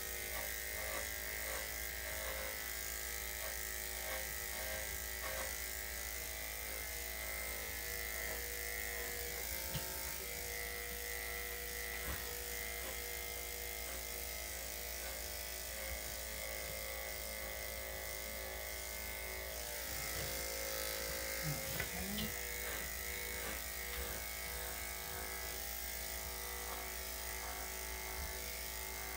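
Electric dog-grooming clippers running with a steady buzz.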